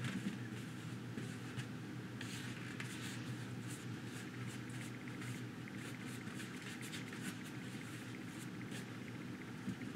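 Paintbrush scrubbing and dabbing fairly dry paint onto a rough modeling-paste textured panel: a soft, irregular scratchy brushing in short repeated strokes, over a low steady hum.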